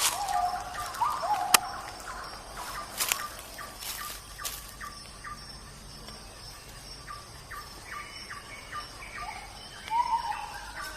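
Forest birds calling. Short falling calls repeat in the first second or so and again near the end, with a run of quick chirps in between. A few sharp clicks stand out in the first half.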